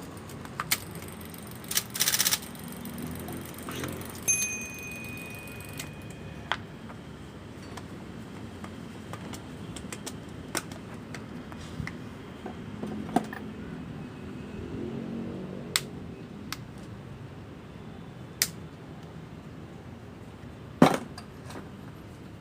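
Scattered metallic clicks and knocks from work on an IBM Selectric III electric typewriter and its parts, sparse and irregular rather than a typing rhythm. A thin, high steady whine lasts about two seconds, some four seconds in, over a low steady hum.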